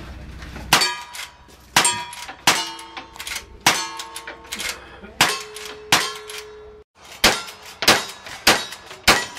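A string of gunshots from a rifle, about one a second, with short metallic rings after several hits as the steel targets are struck. The shots pause briefly about seven seconds in, then go on.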